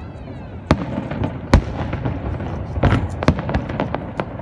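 Aerial fireworks bursting: a string of sharp bangs, the loudest about a second and a half in, with a quicker run of bangs over the last second and a half.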